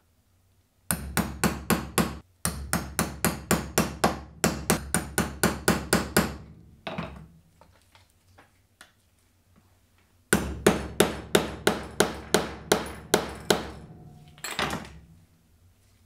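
Stitching chisel (pricking iron) being hammered through leather to punch stitch holes: rapid, evenly spaced sharp blows about four or five a second, in two long runs with a pause of a few seconds between them.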